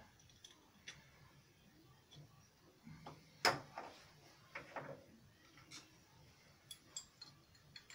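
Faint scattered clicks and knocks of thin wire and hand tools being handled against the metal clutch pulley of a lathe headstock, with one sharper knock about three and a half seconds in. The wire is being worked around the gap between the stuck clutch plates and the main pulley to pull them apart.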